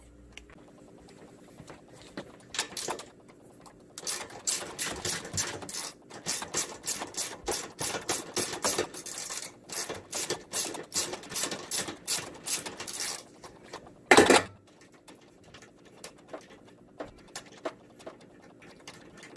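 Ratchet wrench clicking in quick, uneven runs for several seconds as bolts are loosened, then one louder knock, followed by a few faint scattered ticks.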